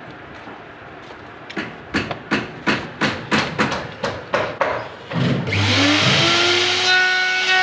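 About a dozen evenly spaced knocks, roughly three a second, then a little after five seconds in an electric router's motor starts, its whine rising in pitch as it spins up and settling into a steady running tone.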